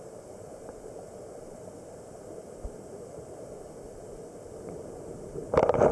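Stream water flowing past a submerged camera, heard underwater as a steady dull rush. About five and a half seconds in, a sudden much louder burst of noise with knocks cuts in.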